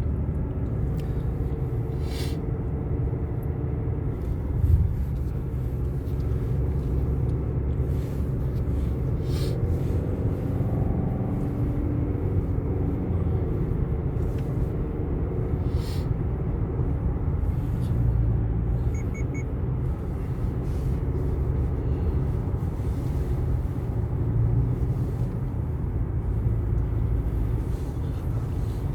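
A car driving on the road: a steady low rumble of road and engine noise, with a few light clicks and a short thump about five seconds in.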